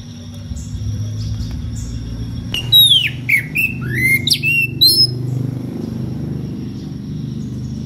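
Oriental magpie-robin (kacer) singing a loud phrase of quick, sweeping whistled notes, some sliding down and some up, starting about two and a half seconds in and lasting about two and a half seconds. A steady low hum runs underneath.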